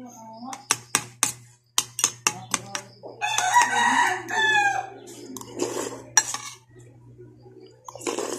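Spoon and fork clinking and scraping against a bowl again and again. A rooster crows once, about three seconds in, for over a second, its call falling in pitch at the end.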